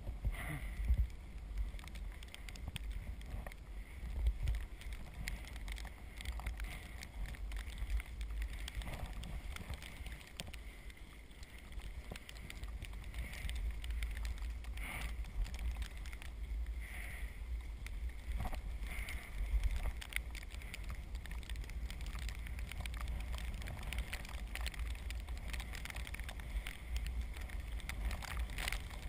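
Azub recumbent trike's tyres rolling through wet snow and slush, a steady hiss under a heavy low rumble of wind on the microphone, with scattered light clicks.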